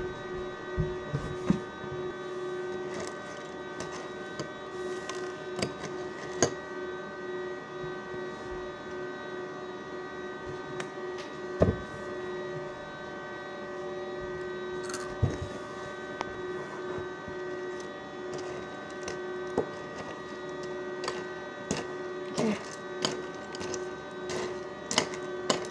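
A steady hum of several pitches, like a running household appliance, with scattered knocks and clinks as breakfast dishes and cereal are handled.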